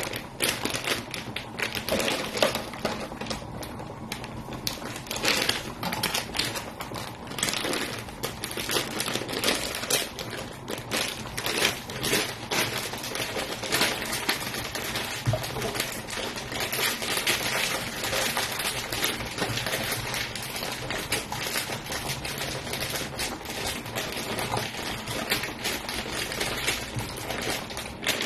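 Rapid, irregular clicking and rattling, like small hard objects being handled, continuing throughout.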